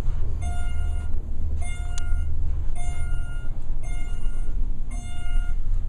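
Inside a moving elevator car, a short electronic beep repeats about once a second over the low hum of the car travelling, with a single sharp click about two seconds in.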